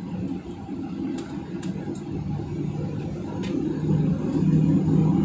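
Boeing 737-900ER cabin noise while taxiing: the steady low rumble of its CFM56 engines heard from inside the cabin, growing louder from about four seconds in, with a few faint clicks.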